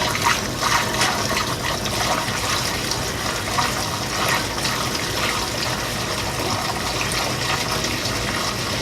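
Gasoline pouring from a gas can through a funnel into a fuel tank, a steady stream of liquid.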